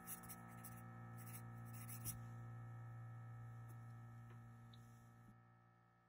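A final sustained piano chord slowly dying away toward silence, with faint pencil-on-paper scratching during the first two seconds.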